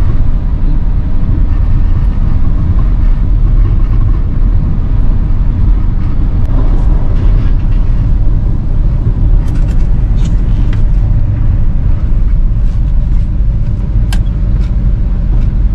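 Older pickup truck driving in town, heard from inside the cab: a loud, steady low rumble of engine and road noise, with a few faint clicks in the second half.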